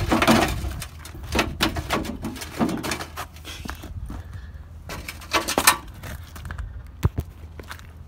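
Irregular knocks, clicks and scrapes of hand work on a truck's chrome front bumper, fitting an LED light bar to its bracket, over a steady low rumble.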